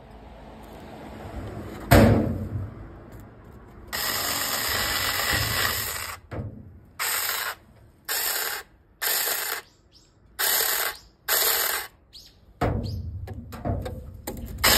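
Cordless 6-inch mini chainsaw (Makita-battery-compatible) chain whirring: a couple of seconds of steady running, then five short trigger blips of about half a second each, then it runs up again near the end. About two seconds in there is a single loud thump.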